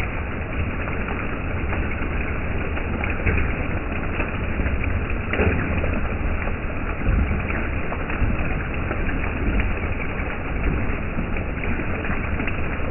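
Heavy hail and rain pelting down on the road and pavement: a steady, dense hiss of countless small impacts over a low rumble, with a few louder hits standing out.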